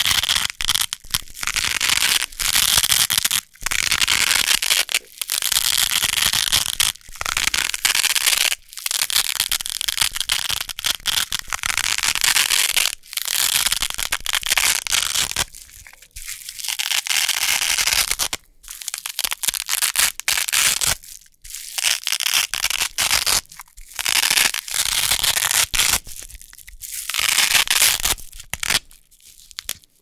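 Wide hook-and-loop (Velcro) tape being peeled apart by hand again and again: a crunchy, crackling rip as the hooks pull out of the loops. There are more than a dozen peels, each lasting one to two seconds, with short pauses between them.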